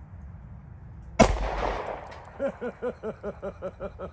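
A single loud, sharp .45 ACP pistol shot from a Heizer PKO-45 about a second in, ringing out for about half a second. About a second after it, a fast, even run of short pitched pulses, about five a second, starts and keeps going.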